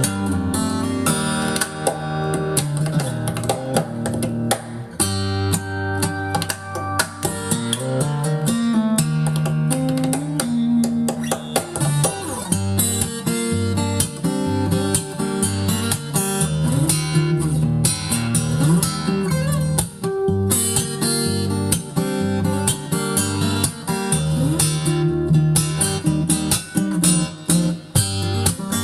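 Guitar music, plucked and strummed notes and chords, played back from a vinyl record on a Lehnert PS 907 turntable with a Shure M75-6S cartridge.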